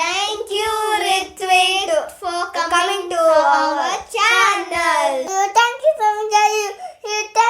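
A child singing, one high voice holding and bending long notes, with no accompaniment.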